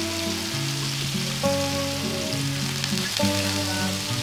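Hot oil sizzling in a wok as chopped food fries. Background music with held notes runs alongside it.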